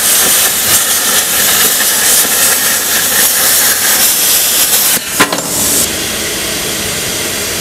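Plasma cutter torch cutting 10 mm steel plate: a loud steady hiss of the plasma arc and compressed air for about five seconds. Then the arc cuts off with a click, and a quieter steady air hiss carries on: the torch's post-flow air cooling the hot nozzle and electrode after the cut.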